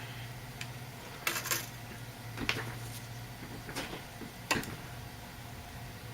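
Light, scattered clicks and taps of small hand tools against a circuit board during soldering work, about five in all, a short cluster coming about a second and a half in. Under them runs a steady low hum.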